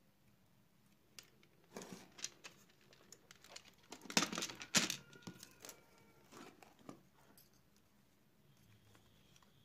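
Handling noise from dismantling an Amstrad E-mailer Plus screen module: clicks, knocks and rustling scrapes of plastic and metal parts and the ribbon cable as a screwdriver is worked and the LCD panel is lifted out. The sounds are loudest around the middle, where two sharp knocks are followed by a faint ringing tone.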